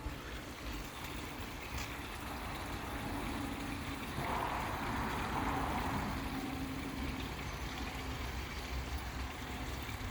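Steady running and splashing water from a backyard pond's waterfall, with a faint low hum underneath; the water sound grows louder for a couple of seconds about four seconds in.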